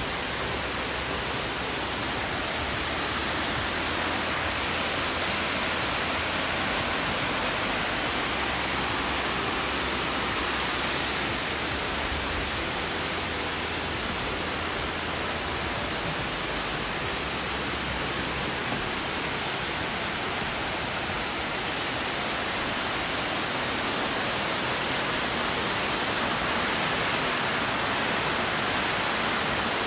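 Steady rushing of a waterfall, a loud even hiss of falling water with no break.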